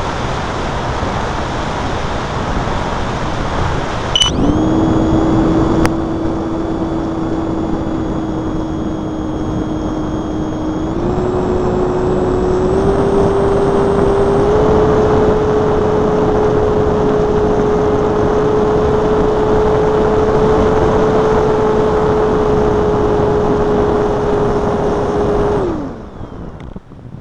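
Electric motor of a Multiplex Blizzard RC model plane starting about four seconds in with a click and running steadily for about twenty seconds. Its pitch rises in a few small steps as the throttle is advanced, then it winds down and cuts out near the end. A steady rush of airflow and wind noise lies under it throughout.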